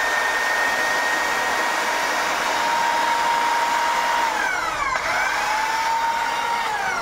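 Stihl HSE 52 corded electric hedge trimmer running with its blades reciprocating, a steady high motor whine. About four seconds in the pitch dips and comes back up, and near the end it starts to fall away as the switch is let go and the blade brake stops the motor.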